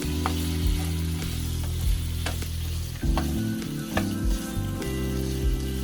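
Chicken pieces sizzling in oil and soy sauce in a frying pan as they are stirred, the spatula knocking sharply against the pan about five times. Low sustained background music notes run underneath.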